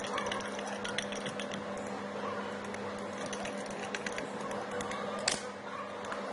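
Light irregular clicks and taps of a small plastic jar being handled, with one sharper click about five seconds in, over a steady low hum.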